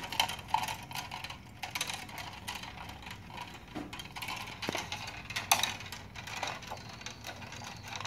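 Electrical wires, the bare copper grounds among them, being handled and pulled at a two-gang switch box: irregular light clicks, scrapes and rattles of wire against the box.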